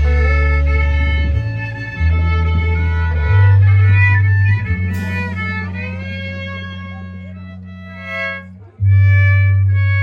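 Live band playing an instrumental passage: held bass notes changing every second or two under sustained higher tones, with a splashy hit about halfway through. The sound thins and dips near the end, then the full band comes back in sharply.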